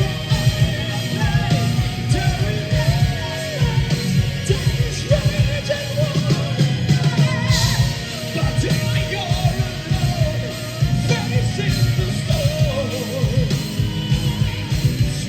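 A symphonic metal band playing live, with a singer holding a wavering melody over heavy guitars and drums.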